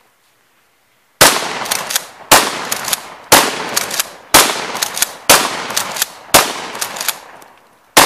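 Remington 870 Tactical pump-action shotgun fired seven times, the first six about a second apart and the last after a slightly longer pause, each shot a sharp blast with a ringing tail.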